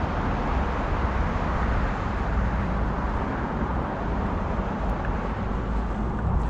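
Steady rushing outdoor noise with a strong, uneven low rumble and no distinct events.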